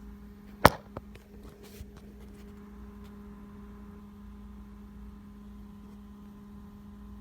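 Steady low electrical hum, with one sharp click about half a second in and a few faint ticks shortly after.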